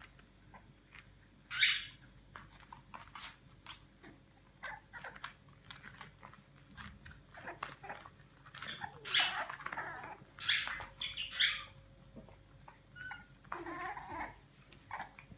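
French bulldog puppies giving short, high-pitched squeaks and yelps, bunched together about halfway through and again near the end, with scattered light clicks.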